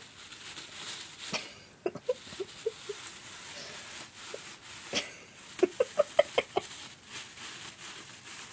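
Plastic bags rustling and crinkling as a cat noses and paws into them, with a quick run of sharp crinkles and squeaks between about five and six and a half seconds in.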